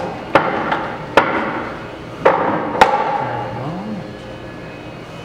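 Five sharp metal-on-metal clanks in under three seconds, each ringing briefly, followed by a short low hum that rises and falls.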